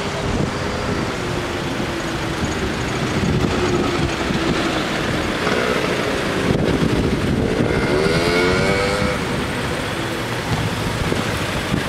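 Cars driving past at close range. About two-thirds of the way through, a motor scooter's small engine revs up as it pulls away.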